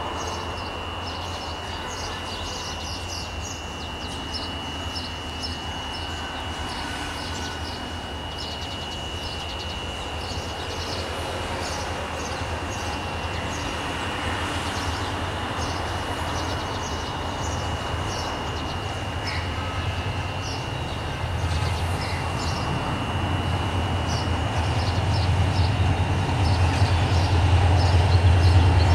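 Meter-gauge diesel locomotive approaching slowly at the head of a commuter train, its engine's low rumble growing steadily louder and strongest near the end.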